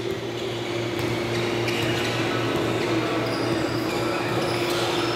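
Indoor gym ambience during a basketball game: a steady hum and the room noise of a large hall, with no clear ball bounces.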